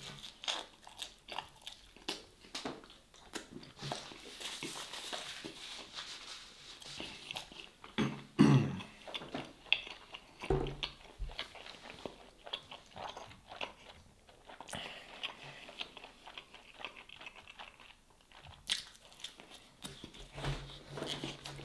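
Close-up chewing and biting of a stuffed bread pastry, many small crunchy clicks from the mouth, with a few louder knocks here and there.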